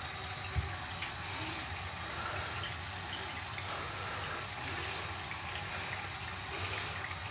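Tap running into a bathroom sink in a steady stream, with a single soft knock about half a second in.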